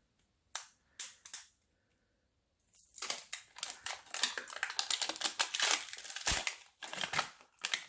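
A few sharp clicks, then about five seconds of dense crackling and tearing as the plastic wrapping of an LOL Surprise doll ball is torn open.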